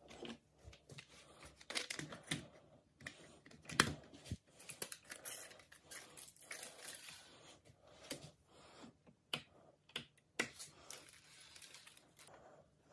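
Irregular clicks, small knocks and rustling from hands working the film path of a Meopta OP 16 16 mm film projector while threading film, with one sharper click about four seconds in.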